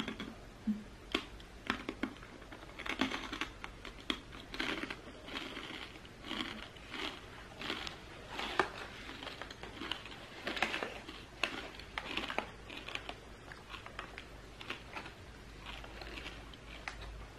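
Someone chewing crispy fried chicken skin snack: an irregular run of dry crunches, roughly one or two a second.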